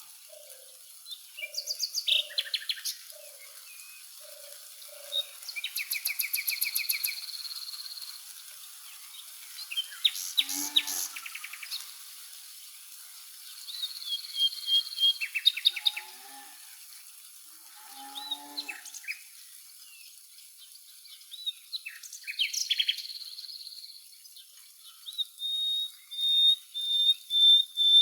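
Several songbirds singing and calling in bouts of rapid chirps and trills, with a run of short lower repeated notes in the first few seconds and a faint steady high hiss beneath.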